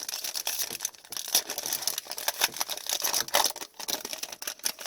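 Trading-card packaging crinkling and rustling, with many quick clicks and snaps as it is handled, loudest in the middle.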